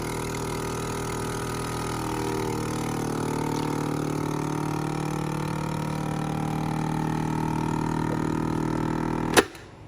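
Vacuum pump of a DZ-280SE vacuum sealer running steadily as it draws the air out of a plastic bag at its suction pipe, some of its tones gliding in pitch partway through. It stops with a sharp click near the end.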